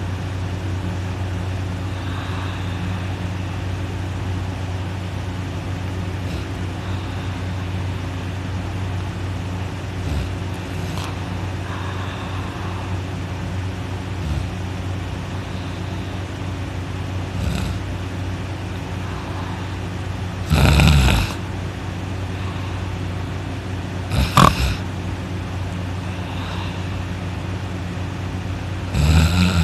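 A person snoring in deep sleep: a few faint snores in the first half, then three loud, short snores in the second half. A steady low hum runs underneath.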